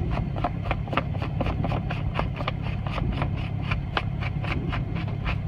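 Irregular clicks and scraping of plastic pump and hose fittings being handled and fitted together, over a steady low rumble.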